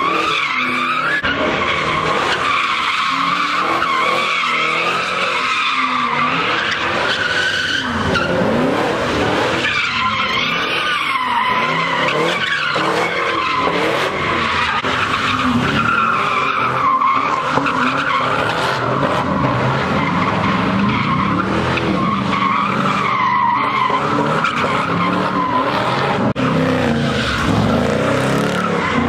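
Cars doing donuts: a continuous tire screech that wavers in pitch as the car circles, over engines revving hard at high rpm.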